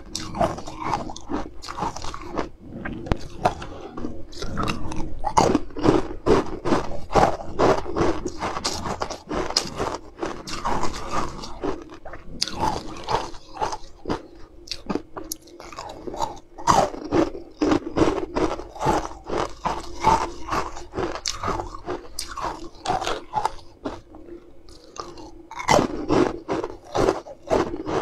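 Someone biting into and chewing hard frozen ice cubes, moulded green ice shaped like honeycomb and bees. It comes as rapid, irregular crunches and cracks in bouts, with short lulls between bites.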